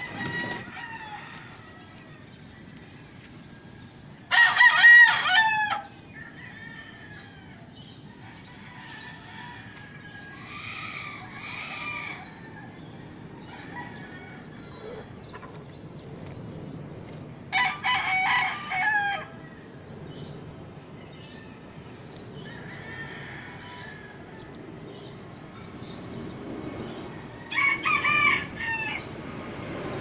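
A rooster crowing three times, each crow about a second and a half long, with fainter calls in between.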